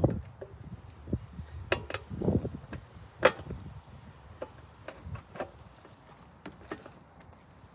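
Scattered plastic clicks and knocks as a lawn mower's plastic fuel tank and recoil starter housing are worked back into place on the engine by hand, with a dull bump a little over two seconds in and a sharp snap just after three seconds.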